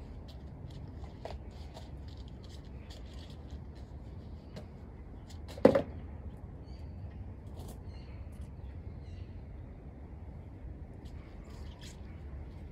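A single sharp knock about six seconds in, over a low steady rumble and scattered faint clicks.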